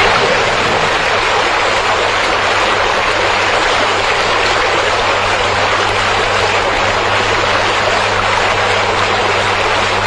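Water gushing out of the outlet of a newly completed small hydroelectric station and rushing down a rocky channel: a loud, steady rush of white water.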